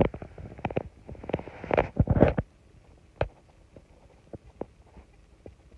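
Close-up rustling, crackling and dull thumps right at the microphone, densest in the first two and a half seconds and then thinning to a few scattered clicks: handling noise as the phone is held against a small dog's fur while it sleeps on its back.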